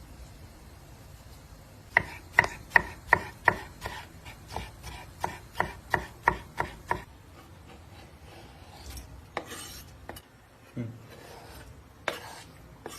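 Kitchen knife chopping vegetables on a cutting board: a quick, even run of about fifteen strokes, roughly three a second, then a few scattered knocks.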